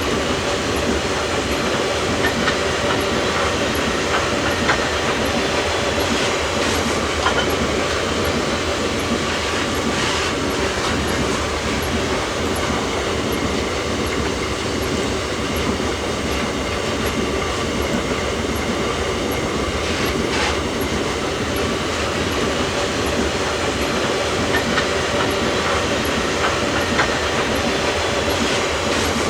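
Iron ore freight train's wagons rolling past on the rails, a steady rumble of steel wheels with rhythmic clicking over the rail joints and a couple of brief wheel squeals.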